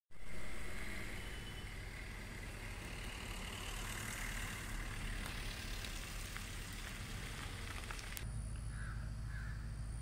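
Outdoor ambience with a steady hiss and crows cawing. About eight seconds in the sound changes abruptly to a steady low rumble, with two short caws over it.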